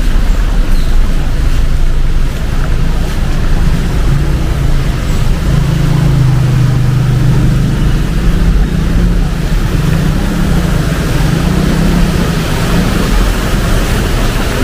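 Heavy rain and rushing water, with a motor vehicle's engine running close by. Its low hum wavers in pitch and is loudest about six to eight seconds in.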